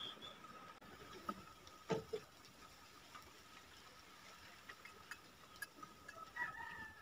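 Faint chicken calls in the background, with one drawn-out call starting near the end. There are a few soft mouth clicks and swallows while water is drunk from a glass.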